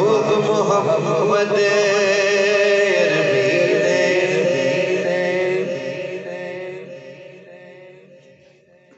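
A man's solo voice singing a naat (devotional kalam) into a microphone, a long wavering, ornamented held line. It fades away over the last three seconds as the line ends.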